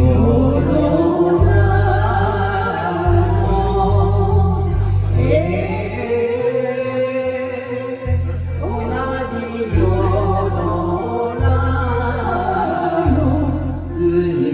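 A group of voices singing a slow song with long held, gliding notes over a backing track with a steady bass line and light regular ticks of percussion.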